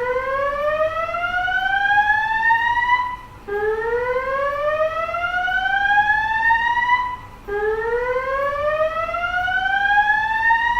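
Notifier voice evacuation fire alarm sounding its slow whoop alert tone: three long rising sweeps of about three and a half seconds each, with a short break between them. It is the evacuation signal played between repeats of the spoken message.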